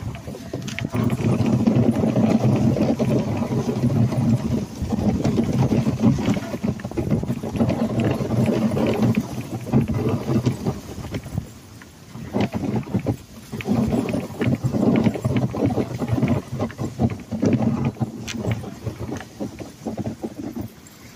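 Wooden dog sled running over a snowy trail behind a team of Alaskan huskies: a steady, rough scraping and crunching of runners and paws on snow, easing for a moment about twelve seconds in.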